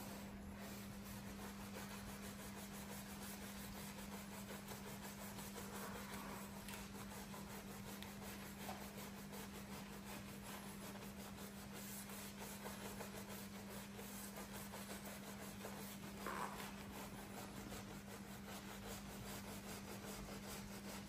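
Faint scrubbing of a small detailing brush on soapy car trim and rubber window seal, over a steady low hum and hiss.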